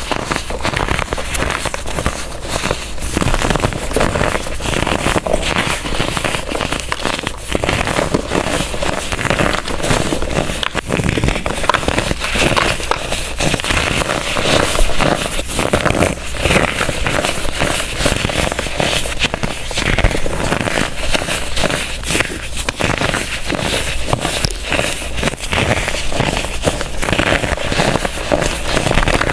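Dried, crunchy blocks of baking soda being crushed and crumbled: a dense, continuous crackle of many small sharp crunches with no pause.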